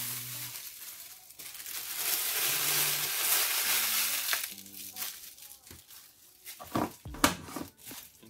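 Granulated sugar pouring out of a plastic bag into a plastic tub: a steady rushing hiss with the bag crinkling, lasting about three seconds, then fading. A couple of light knocks follow near the end.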